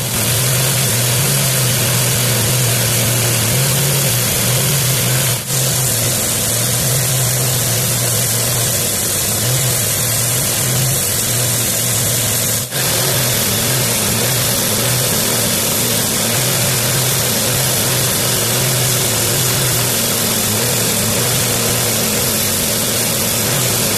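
Homemade motor-driven saw running steadily while cutting a curve in Sintra (PVC foam) board: a loud, even noise over a low hum that wavers as the cut goes on. It drops out briefly twice, about five and thirteen seconds in.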